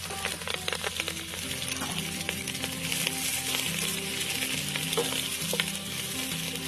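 Sliced onions, green chillies, ginger and garlic sizzling as they fry in hot oil in a steel pot, stirred with a wooden spoon that clicks and scrapes against the pot now and then.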